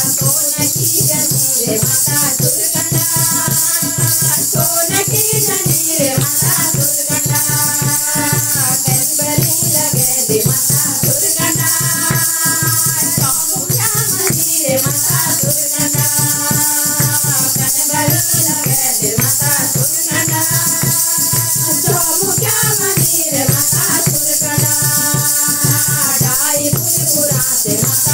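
A group of women singing a Garhwali devotional bhajan in unison into microphones, in repeating melodic phrases, over steady hand-clapping and fast, continuous percussion.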